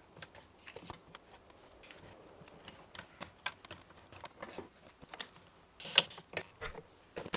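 Clamps and workpiece being handled and tightened during a glue-up: irregular small clicks and knocks, with a louder clatter about six seconds in.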